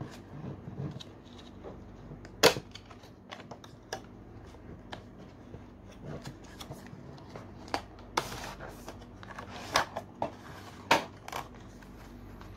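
Stiff clear plastic blister packaging being handled and opened by hand: scattered crinkles and clicks, with one sharp click about two and a half seconds in and a busier run of crackles around eight to eleven seconds.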